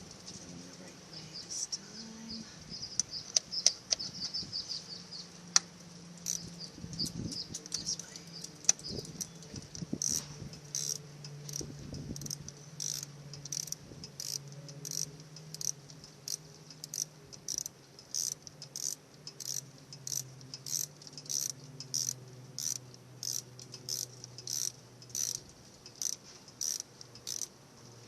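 A 10 mm ratcheting wrench clicking in short bursts as it is swung back and forth on a motorcycle battery terminal bolt, at about one and a half bursts a second from about ten seconds in. A low steady hum runs underneath.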